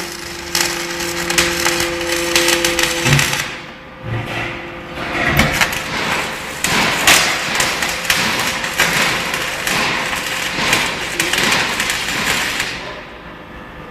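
Electric arc welding: the dense crackling hiss of the arc, broken off briefly about four seconds in and dying away near the end, over a faint steady hum.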